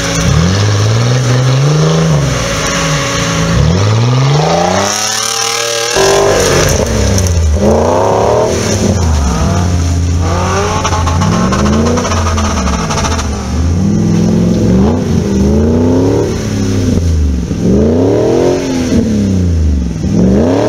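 Off-road vehicle's engine revved hard in repeated surges, pitch climbing and dropping every second or two as it fights for traction in snow and mud. The sound breaks off abruptly about six seconds in, then the revving carries on.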